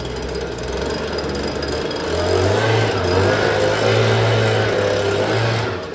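Handheld leaf blower running, blowing debris off a stable floor; it grows louder about two seconds in and winds down near the end.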